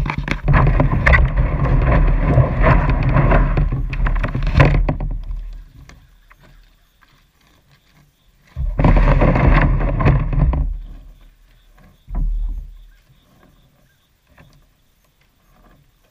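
Water sloshing and splashing around a small boat being put in on a river, in three bursts: a long one of about five seconds, one of about two seconds, and a short one.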